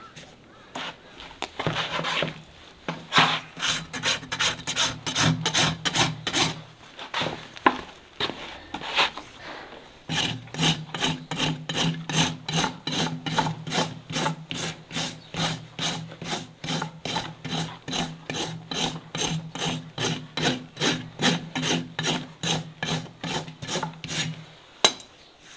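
A steel hoof rasp filing a horse's hoof held on a hoof stand, in quick, even back-and-forth strokes of about three a second. The rasping is more uneven at first, with a brief pause about seven seconds in, and it stops near the end with a single sharp tap.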